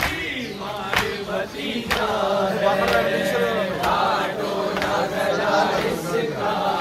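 A crowd of men chanting a mourning chant in unison, with a sharp strike about once a second keeping time.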